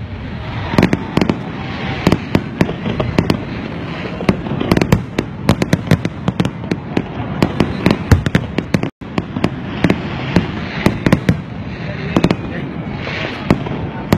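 Aerial fireworks display: a rapid, continuous run of sharp cracks and bangs from bursting shells, several a second, over a steady rumbling wash. The sound cuts out for an instant about nine seconds in.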